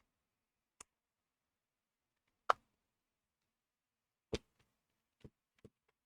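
Plastic parts of a hair straightener's housing being handled and fitted together: five separate sharp clicks and knocks. The loudest comes about two and a half seconds in, and the last two follow close together near the end.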